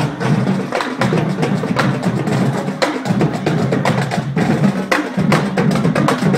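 Marching band playing as it passes, the drumline's sharp strikes loudest over sustained low brass.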